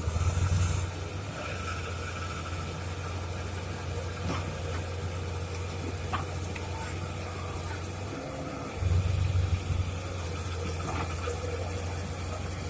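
Heavy-equipment diesel engine running at a steady low idle, with two brief louder surges, one at the very start and one about nine seconds in.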